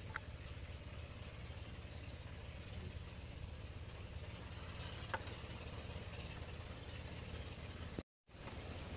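A steady low engine-like hum, with two faint clicks, one at the start and one about five seconds in. The sound cuts out for a moment near the end.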